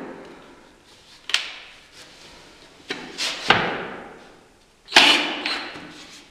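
A few short knocks and scrapes as a cordless drill and a metal pivot plate are handled against a wooden bed-frame rail, the loudest about five seconds in.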